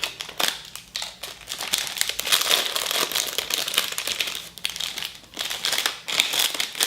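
Plastic wrapper of a chocolate-coated marshmallow lollipop being pulled open by hand, with dense, irregular crinkling and crackling throughout.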